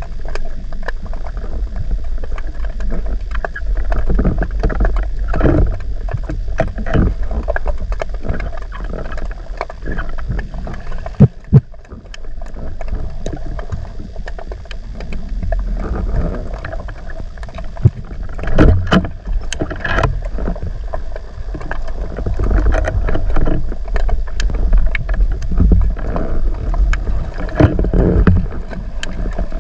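Underwater sound picked up by a camera mounted on a speargun: a steady low rush of water with frequent clicks and crackles. There are a few sharp knocks midway.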